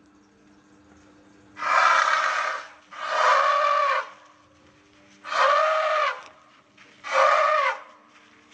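Asian elephant trumpeting: four calls of about a second each, each rising and then falling in pitch.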